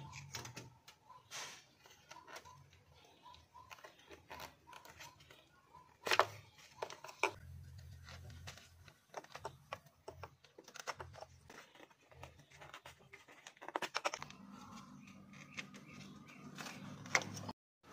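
Hand-handling noise on plastic ignition-coil connectors and wiring-harness clips: scattered sharp plastic clicks, snaps and rustles as the harness is unclipped from the coils before they are pulled to reach the spark plugs.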